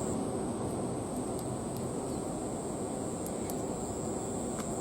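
Steady outdoor background noise: a low even rumble with a constant thin high-pitched whine over it and a few faint ticks.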